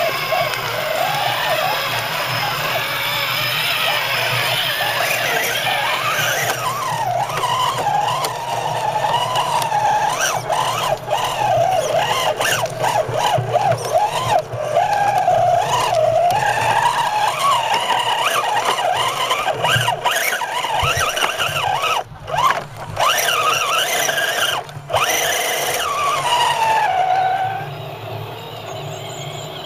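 Electric motor and gearbox of a miniature RC crawler truck whining, the pitch wavering up and down with the throttle as it crawls over gravel. The whine cuts out briefly twice a little over twenty seconds in and winds down near the end.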